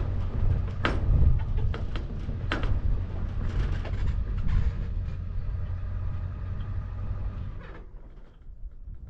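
A vehicle driving: a steady low engine and road rumble with sharp knocks and rattles, dropping off about eight seconds in.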